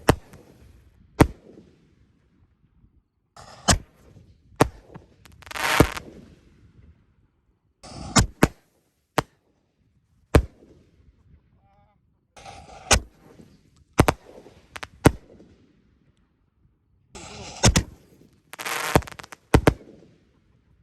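Consumer fireworks going off: sharp bangs in clusters every four or five seconds, with hissing and crackling between some of them.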